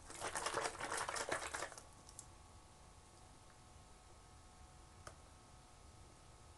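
A carton of coconut milk shaken hard, in quick sloshing strokes, for nearly two seconds. Then it goes quiet except for a faint steady hum and a single click about five seconds in.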